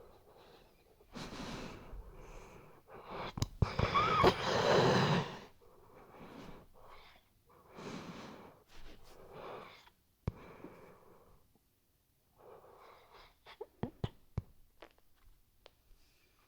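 Sleeping weimaraner snoring and wheezing in uneven breaths. The loudest comes about four seconds in, a long breath with a whistling note. Near the end there are quieter snuffly breaths with small sharp clicks.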